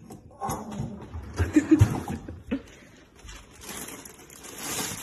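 A dog tugs a refrigerator's freezer drawer handle with its teeth and drags the drawer open, making irregular knocks and rattles. A couple of louder thumps come about a second and a half in.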